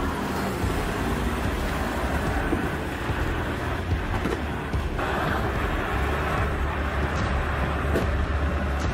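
Volvo L150H wheel loader's diesel engine running under load as the machine works over rubble: a steady low drone with a rushing noise above it. About five seconds in, the rushing sound grows louder.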